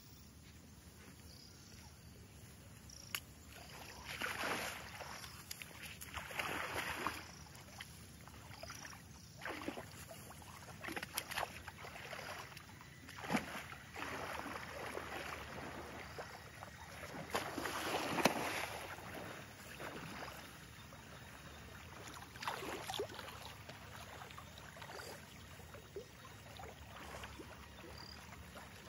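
An Asian elephant wading and splashing in a pool of rainwater: water sloshes and splashes in repeated surges lasting a second or two each, the biggest about two-thirds of the way through.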